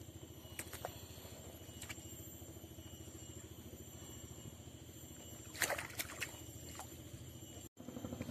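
Sharp clicks and rattles from handling a prawn and a round mesh keep net, loudest in a cluster about five and a half seconds in, over a steady low motor drone. The audio drops out briefly near the end.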